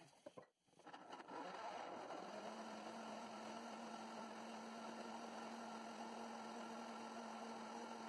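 Countertop blender running steadily, puréeing cooked beetroot and carrot with their cooking liquid. It starts about a second in, and a low steady hum under the whirr settles in shortly after.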